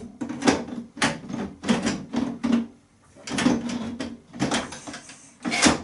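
Ninja Foodi pressure-cooker lid being fitted and twisted onto the pot: a series of plastic-on-metal scrapes, grinding and knocks as it seats and locks, with one sharp clunk near the end.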